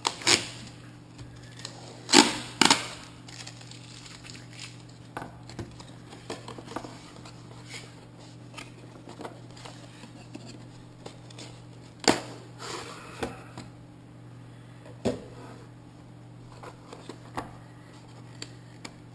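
GoPro Hero 5 Black retail box being handled and opened: scattered clicks, knocks and crackles of the clear plastic case and cardboard packaging, with a few sharper snaps, the loudest about two seconds in and again around twelve seconds, over a steady low hum.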